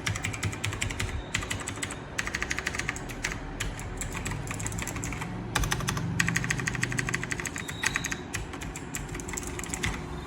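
Typing on a TVS Gold Pro mechanical keyboard: fast runs of clicky keystrokes in bursts, with short pauses between them.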